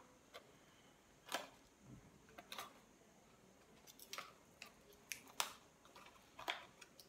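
Small folding knife cutting and prying open a small box: a dozen or so faint, irregular sharp clicks and scratches.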